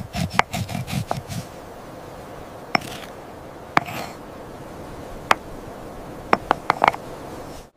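Stone pestle grinding mineral pigment in a stone mortar: a steady scraping grind with a few dull knocks at the start, then scattered sharp stone-on-stone clicks, bunched into a quick run of taps near the end.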